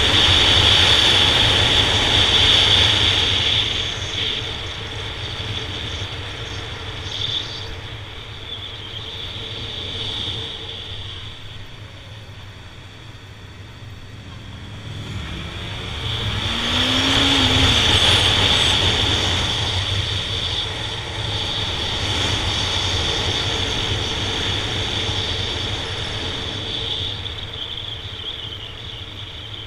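Ride-along sound of a Honda Nighthawk 750's inline-four engine with wind and road noise at speed. It is loud near the start, dips, and swells again a little past the middle.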